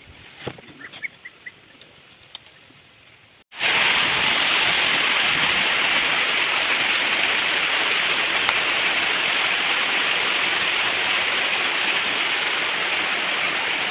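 Heavy rain falling steadily, a loud, even hiss that starts abruptly about three and a half seconds in. Before it there is only faint quiet ambience with a few short high chirps.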